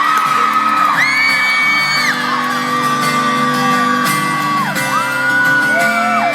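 Arena crowd of fans screaming, with single long high-pitched screams held about a second each, one after another, close to the microphone. Under them a guitar plays a steady song intro.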